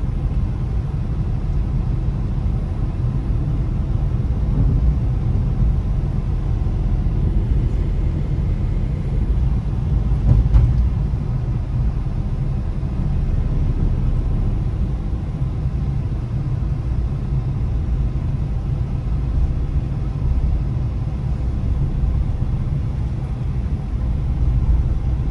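Steady low rumble of a car being driven, heard from inside the cabin: engine and road noise, with one brief knock about halfway through.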